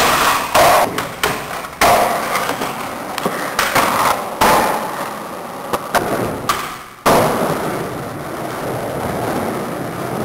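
Skateboards on an indoor park's ramps: wheels rolling, with repeated sharp clacks and thuds of boards landing and hitting. There is a sudden change in the sound about seven seconds in.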